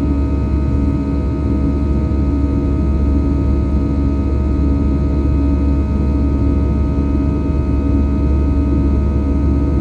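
Airbus A320 jet engines running steadily, a deep rumble with several steady whining tones above it.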